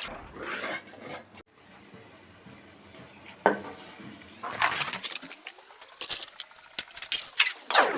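Kitchen clatter: utensils knocking against pots and dishes, with water splashing. The knocks come irregularly and grow busier in the second half.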